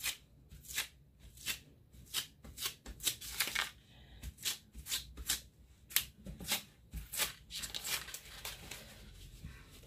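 Paper towel dabbed and rubbed over sticky vinyl transfer tape on a wooden board: short crinkly rustles, about two a second.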